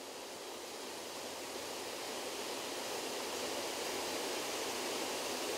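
Water pouring over a mill dam's spillway: a steady rushing hiss that grows slightly louder over the few seconds.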